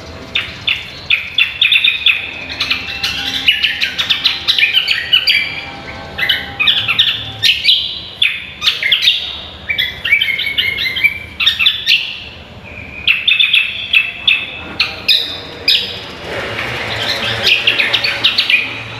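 Greater green leafbird (cucak kombo) singing a loud, fast, varied song of chirps and trills in phrases broken by short pauses.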